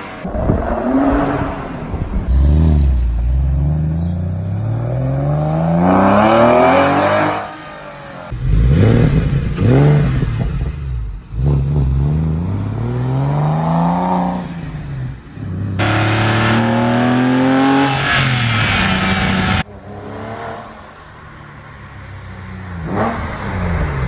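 A 2001 Porsche 911 (996) 3.4-litre flat-six breathing through custom stainless steel headers, an X-pipe, 200-cell cats and Fabspeed mufflers, revving and accelerating in a series of short clips. The pitch climbs and drops again and again, with sudden jumps where one clip cuts to the next.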